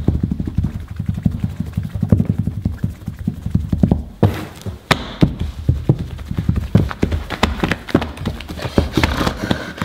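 Hands squishing, poking and pressing a soft slime dusted with powder against a tabletop: a rapid, irregular run of soft wet squelches and thuds, with crisper popping clicks from about four seconds in.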